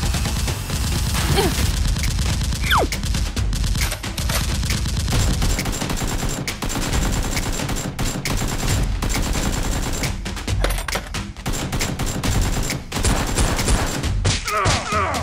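Rapid automatic gunfire in long, dense volleys with a few short breaks, the gun sound effects of a toy-blaster shootout.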